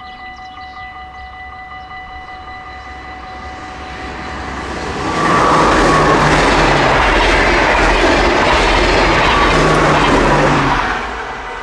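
Level-crossing warning bell ringing fast and steadily while a Dutch NS passenger train approaches and passes at speed. The train's rush of wheels on rail builds from about four seconds in, drowns the bell for about six seconds, then drops away near the end.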